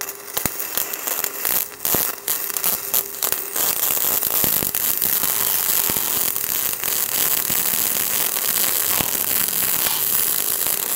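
Two Smart Mix 232 MIG welders arcing at the same time, one on gasless flux-core wire and one on gas-shielded solid wire: the crackle and sizzle of the welding arcs. It starts as scattered pops and becomes a dense, steady crackling after about three seconds, then stops near the end.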